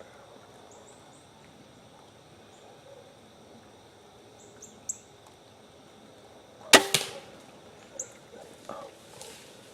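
A bow shot about two-thirds of the way in: one sharp snap as an arrow is released at a hog, followed by a few fainter knocks. Steady insect drone and brief bird chirps run underneath.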